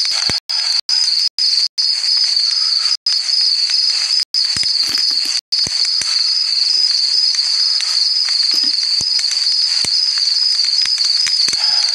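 Crickets trilling steadily in a high, continuous, slightly pulsing chorus. The sound cuts out for an instant several times in the first half.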